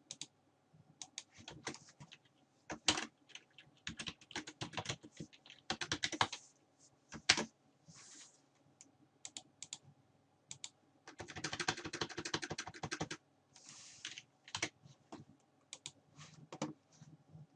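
Computer keyboard typing: irregular runs of key clicks, with a dense, fast run of keystrokes about eleven to thirteen seconds in.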